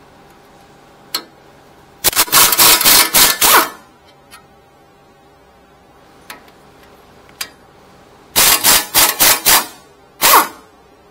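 Impact gun rattling in two bursts of rapid hammering, about two seconds in and again about eight seconds in, each lasting a second or so with a short blip after the second: it is breaking loose the two 17 mm brake caliper bracket bolts.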